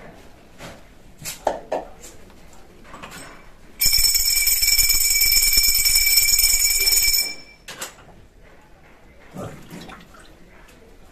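Puja hand bell rung continuously for about three and a half seconds, starting about four seconds in and stopping abruptly, with a steady high ringing. A few soft knocks come before it.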